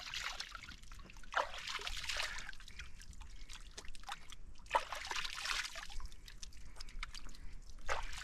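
Hands sloshing and splashing in a shallow pool of water while washing something, in a few short bouts.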